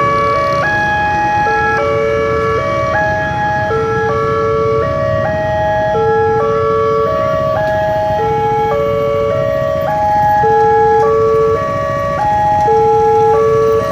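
Indonesian level-crossing warning alarm played through a loudspeaker: a short electronic tune of stepped notes that repeats about every two seconds, with road traffic rumble underneath. It sounds while the barriers are down, signalling that a train is approaching.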